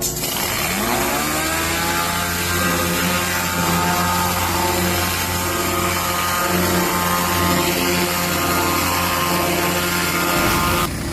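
Pressure washer motor spinning up with a rising whine over the first second or so, then running steadily under a loud, even hiss. Both cut off suddenly near the end.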